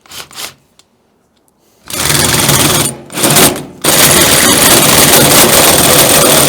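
Power drill cutting the deadbolt bore through a metal door with a hole saw. It starts in two short bursts about two seconds in, then runs steadily and loudly from about four seconds.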